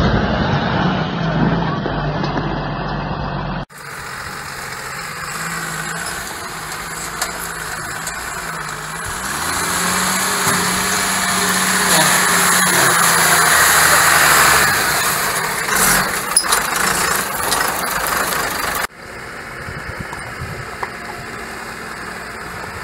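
Tata 715 TC army 4x4 truck's Cummins diesel engine running under load as the truck crawls over rough ground. It grows louder and rises in pitch partway through as the truck works up a slope. The sound cuts off sharply twice, and after the second cut the engine is fainter and more distant.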